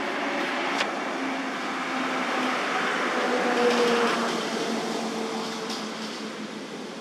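A motor vehicle passing by: a steady engine hum with road noise that grows louder to a peak a little past the middle, then fades away.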